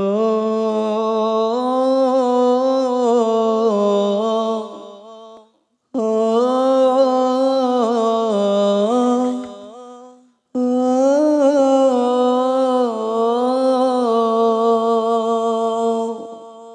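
A man's solo voice singing a slow, unaccompanied sholawat introduction: three long melismatic phrases of held, wavering notes, each fading out before the next begins.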